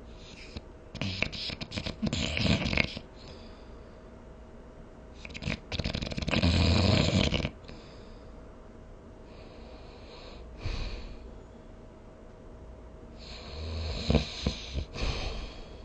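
Snoring: three loud, rattling snores a few seconds apart, with a softer breath between the second and third.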